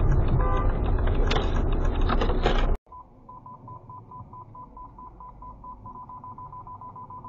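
Loud road and engine noise with short electronic beeps, cutting off suddenly about three seconds in. Then a much quieter hum with a rapid, even electronic beeping, about four beeps a second.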